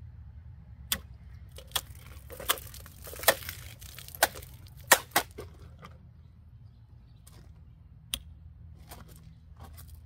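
Folding knife blade slashing and stabbing at a hand-held plastic water bottle: a series of sharp plastic cracks and pops, about seven in the first five seconds with crinkling between, then one more about eight seconds in.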